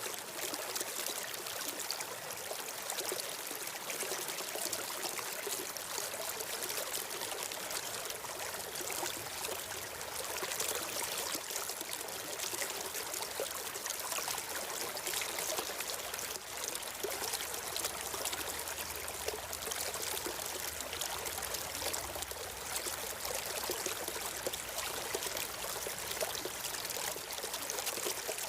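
Steady flowing water, a stream trickling and splashing without a break.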